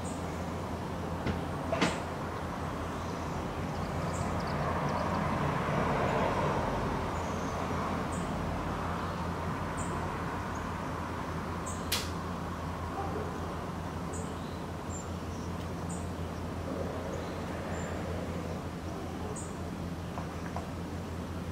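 Outdoor background sound: a steady low hum, with a wider rumble that swells and fades a few seconds in. Two sharp clicks, one near the start and one about halfway, and faint short high chirps scattered throughout.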